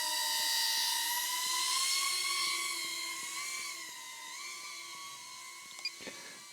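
BetaFPV Pavo20 Pro II cinewhoop's brushless motors and guarded propellers whining in flight, the pitch wavering slightly with throttle. It grows fainter after about four seconds.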